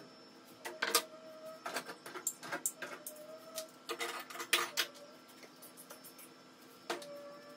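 Objects handled and set down on a kitchen countertop: a run of light clicks and knocks, thickest in the middle, with one more knock near the end, over a faint steady hum.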